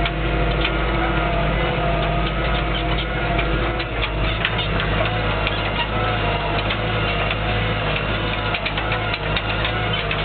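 Lamborghini tractor's diesel engine running steadily under load while pulling a disc harrow through a field, with frequent rattling clicks over the engine note.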